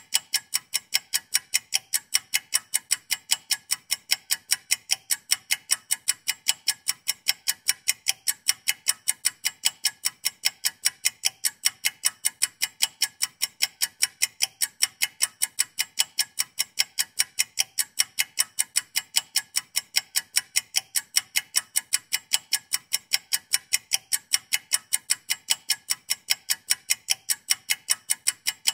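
Ticking clock sound effect for a countdown timer: an even run of sharp ticks, several a second.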